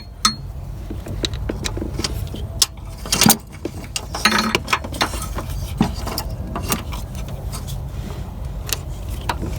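A wrench working loose the nut on a car starter's cable terminal: irregular metal clicks and taps, with a louder knock about three seconds in, over a steady low hum.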